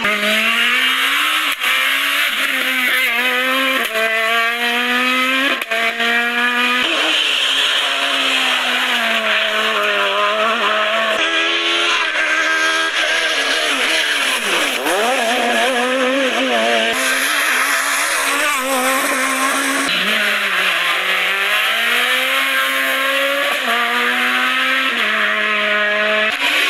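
Kit car and Super 1600 rally car engines at high revs on a stage, climbing through the gears with a sharp drop in pitch at each upshift, then lifting off and pulling hard again through the corners. Near the middle one car's revs fall steeply and rise again as it brakes and accelerates out of a bend.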